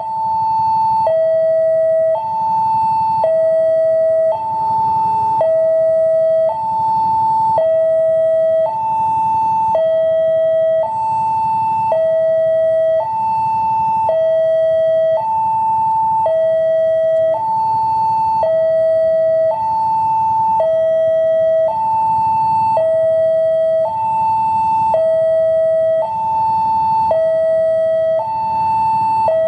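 Railway level-crossing warning siren sounding continuously: a loud electronic hi-lo alarm, a higher and a lower tone alternating, each held about a second. It signals that a train is approaching the crossing.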